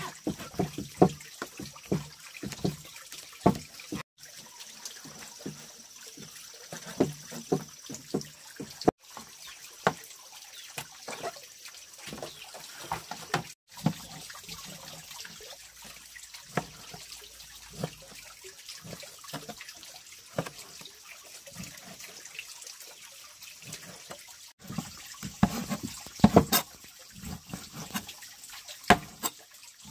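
Water splashing and trickling, as in washing by hand at a tap or basin, with frequent knocks and clatters. The sound breaks off for an instant four times, and the clatter is loudest and densest near the end.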